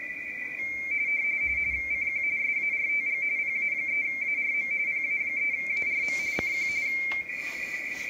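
Amateur radio RTTY signal received on the Icom IC-7100 transceiver's speaker on 40 metres: a station calling CQ. It is a warbling tone flicking rapidly between two close pitches, the mark and space tones of the frequency-shift keying. The keying starts under a second in and stops about a second before the end, with a steady narrow hiss at the same pitch around it and a few faint clicks near the end.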